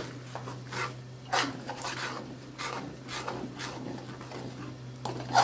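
Metal slotted spatula scraping and stirring thick chili sauce around an aluminium wok, a scrape roughly every half second, over a steady low hum.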